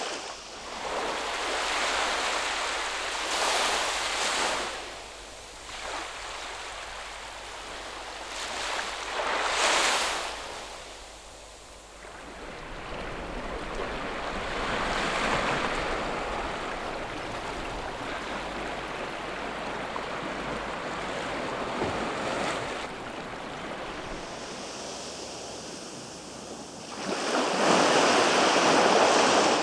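Ocean surf: waves washing in, heard as rushing noise that swells and fades in irregular surges, loudest about ten seconds in and near the end.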